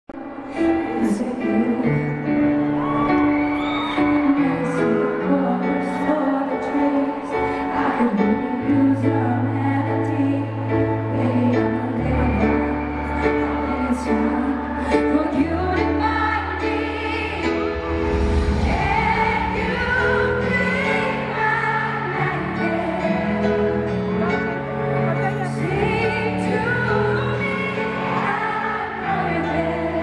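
A woman singing a slow ballad into a microphone, accompanied by a grand piano.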